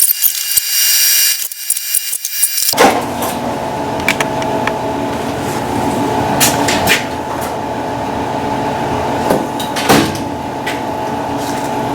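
Steady mechanical hum in a workshop, starting abruptly a few seconds in, with occasional sharp clinks of hand tools on metal.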